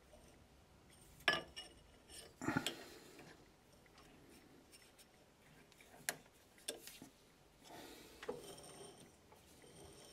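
Quiet workshop handling: a few sharp metallic clicks and short scrapes as a grinding wheel and a steel rod are shifted against a lathe chuck. Near the end comes a soft rubbing as the chuck turns.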